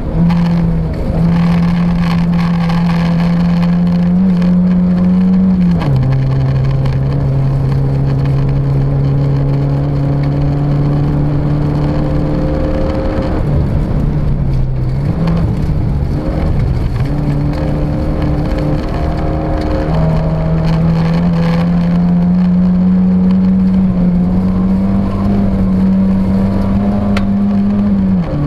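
Volvo Original Cup rally car's engine heard from inside the cabin, driven hard at high revs on a special stage. The engine note drops sharply about six seconds in, wavers and dips around the middle, then climbs back to high revs, over steady road noise.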